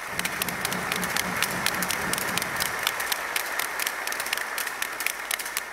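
A large audience applauding in a big hall, with many hands clapping together.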